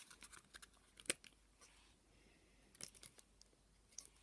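Near silence with faint, scattered clicks and crinkles of a clear plastic wax melt pot being handled and opened, with one sharper click about a second in.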